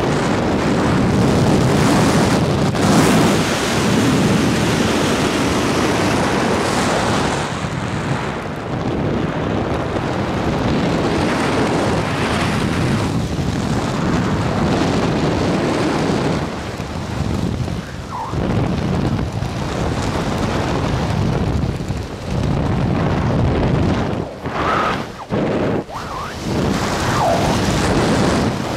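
Wind buffeting the microphone of a helmet-mounted camera during flight under an open parachute: a loud, gusty rushing and rumbling that rises and falls, with a few brief dips near the end.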